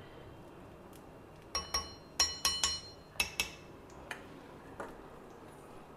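A spoon clinking against a small bowl of ghee, several quick ringing clinks a second or so in, then a couple of fainter taps.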